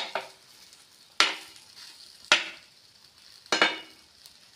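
Steel spatula clinking against a nonstick frying pan while turning a bread omelette: about five sharp metallic clinks, each with a brief ring, roughly a second apart. A faint frying sizzle runs underneath.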